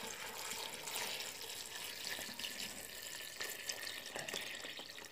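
Water poured in a steady stream into a metal pot of dried apple and apricot slices, splashing onto the fruit.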